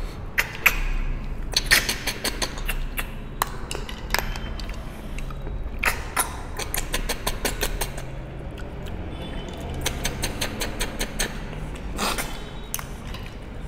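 Snails being sucked out of their shells: repeated short, sharp sucking slurps and clicks, some coming in quick runs, over a steady low hum.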